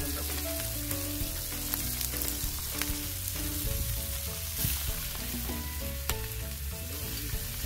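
Fish and squid sizzling on a hot steel griddle over charcoal, with a few sharp clicks of tongs and scissors against the metal. A simple melody of background music plays underneath.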